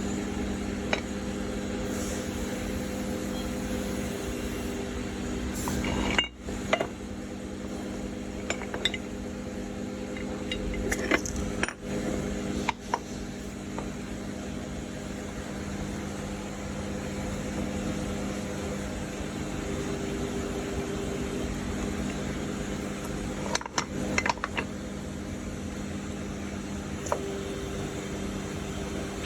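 Steady electric machine hum in a metalworking shop, with scattered metallic clinks and knocks of steel auto parts being handled during assembly. The sound cuts out briefly a few times.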